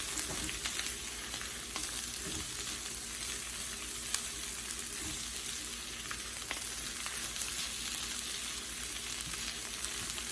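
Eggplant and egg frying in oil in a pan: a steady sizzle with a few light clicks as the pan is stirred.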